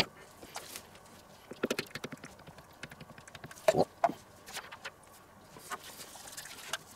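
Small spice shakers being set down on a wooden cutting board and counter: scattered light clicks and knocks, with two louder knocks about four seconds in.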